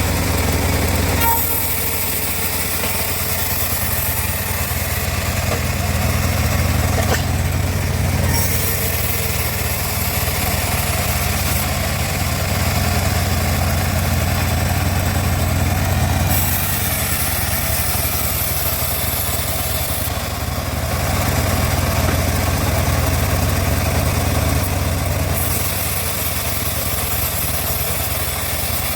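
Engine-driven home-built bandsaw mill running steadily, with a higher hiss that comes and goes every few seconds.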